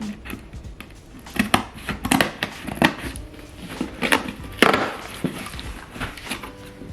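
Scissors cutting and scraping through packing tape on a cardboard box: a run of irregular sharp scrapes and knocks, the loudest about two-thirds of the way through.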